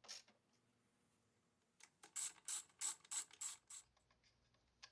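A hand ratchet wrench clicking through about six quick strokes, a second and a half of crisp clicks, while bolts are run down.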